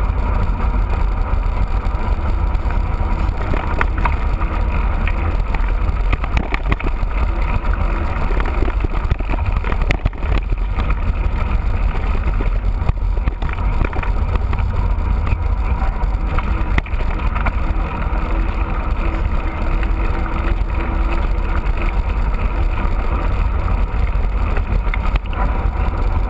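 Steady wind rumble on the microphone of a camera carried on a moving mountain bike, with the hiss of tyres on the ground and scattered small knocks and rattles.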